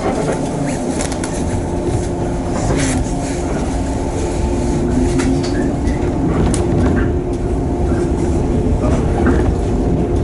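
Electric commuter train running, heard from inside the carriage: a steady rumble and motor hum with scattered clicks from the wheels on the track, growing a little louder as the train gathers speed after leaving the station.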